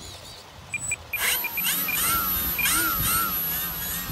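Several short high electronic beeps about a second in, then the E-flite Air Tractor's electric motor and propeller spin up. Their whine rises and falls repeatedly as the throttle is worked, under a steady very high whine.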